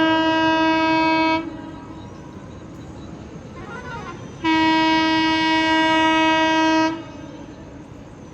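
Air horn of a WAP-7 electric locomotive sounding two long single-tone blasts: the first stops about a second and a half in, and the second starts about four and a half seconds in and lasts roughly two and a half seconds. The train's steady running noise carries on underneath.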